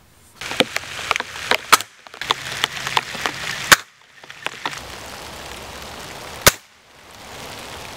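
Hatsan Model 95 spring-piston air rifle firing: two sharp shots about three seconds apart, the louder one about halfway through and the other near the end, with lighter clicks and handling noises before them.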